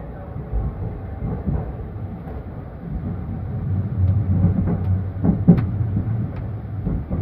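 Sleeper train running, heard from inside the carriage: a steady low rumble with a few sharp clacks from the wheels over the track between about five and six and a half seconds in.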